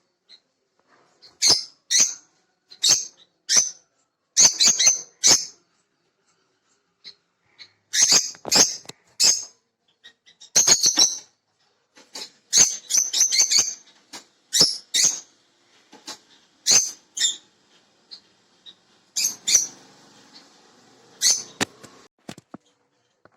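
Small birds chirping: short, sharp, high chirps coming singly and in quick clusters of two or three, with brief pauses between.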